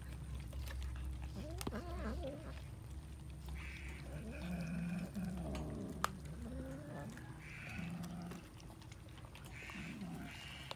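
A group of cats growling and calling in low, wavering tones while they tear at a whole boiled chicken, the calls coming in short spells, with a few sharp clicks. A steady low hum stops about two-thirds of the way through.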